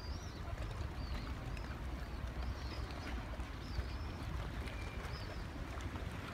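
Small birds chirping, a run of short high calls that rise and fall, about two a second, over a steady low rumble.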